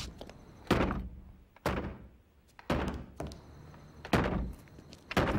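A rifle butt battering a locked wooden door to force it open: about five heavy thuds, roughly one a second.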